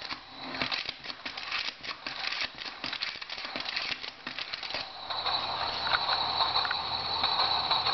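Tin humming top with a clear dome being pumped: a fast run of rattling ratchet clicks for about five seconds, then the top spins up into a steady high-pitched hum.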